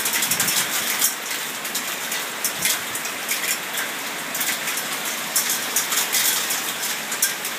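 Heavy thunderstorm downpour, a steady dense rush of rain with many sharp ticks of drops striking nearby surfaces.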